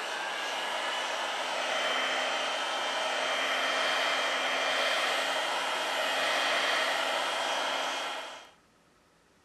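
Electric heat gun blowing steadily, its fan and hot air making an even rushing noise with a faint high whine. It is switched off and cuts out abruptly about eight and a half seconds in.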